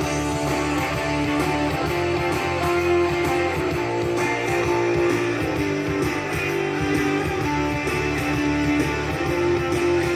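Music with strummed guitars and bass playing steadily.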